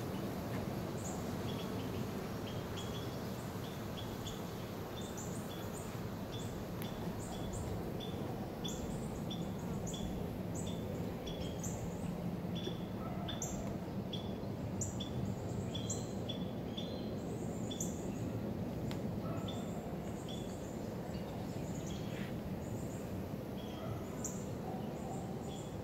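Outdoor woodland ambience: birds chirping in short repeated notes, about two a second for the first half and sparser later, with higher, sharper calls mixed in, over a steady low hum.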